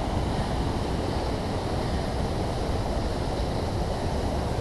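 Mountain creek water rushing steadily over rock.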